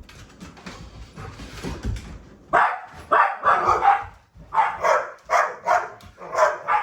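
Dog barking excitedly at a vacuum cleaner: a quick run of about eight loud barks, roughly two a second, starting after a couple of seconds of rough, building noise.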